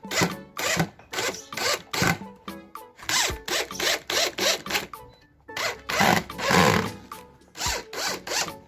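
Repeated rasping, scraping strokes of hand tool work, about two a second, with one longer, louder stroke past the middle, over background music.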